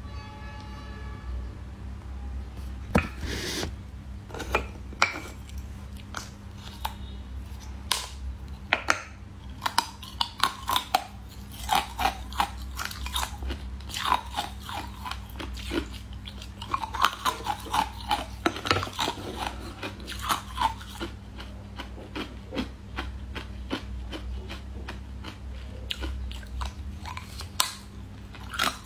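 Close-miked biting and chewing of crunchy translucent candy, a long run of sharp, irregular crunches.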